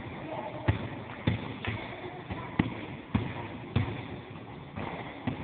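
Basketball bouncing on a hard court floor in irregular dribbles and bounces, about seven sharp thuds, with children's voices in the background.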